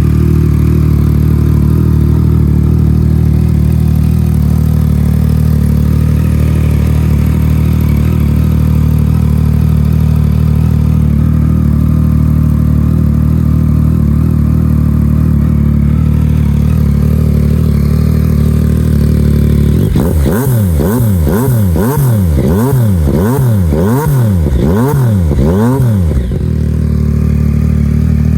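Yamaha MT-09's inline three-cylinder engine idling steadily through a 3-into-1 race-style exhaust. About two-thirds of the way in, it is blipped quickly six or seven times in a row, the revs rising and falling with each blip, then it settles back to idle.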